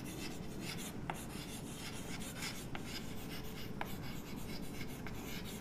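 Chalk writing on a chalkboard: faint scratching strokes with a few short taps as the chalk meets the board.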